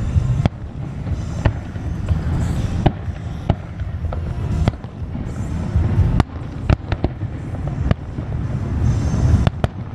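Aerial firework shells bursting: about ten sharp bangs at irregular intervals, two in quick succession near the end.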